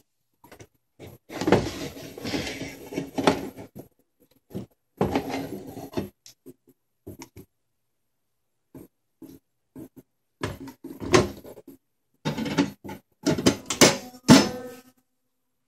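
Crinkling, scraping and clanking of an aluminium foil roasting pan being pulled out of a small sheet-metal Little Chef toy oven and set down on its metal stovetop, with knocks from the oven's metal door. The handling comes in several short bouts of clatter with quiet pauses between.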